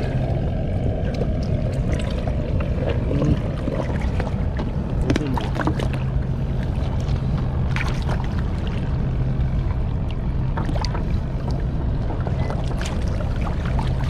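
Shallow river water sloshing and splashing around a wader's legs and hands as he works among rocks with a bamboo basket trap, with scattered small splashes over a steady low rumble.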